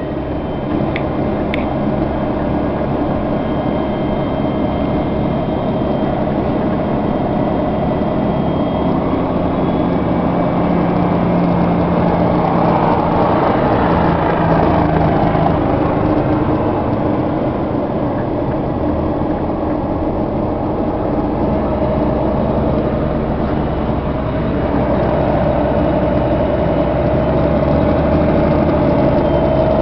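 Vehicle engine and road noise heard from inside a moving truck: a steady loud drone whose engine note shifts a little as it drives.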